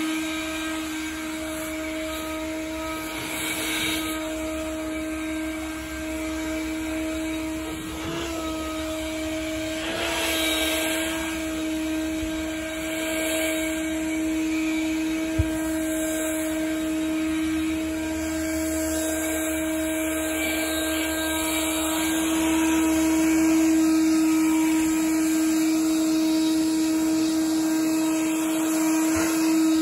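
Handheld leaf blower running steadily, blowing snow: a high, steady whine over the rush of air, with brief dips in pitch about eight and ten seconds in and a single sharp click about halfway. It gets somewhat louder in the last third.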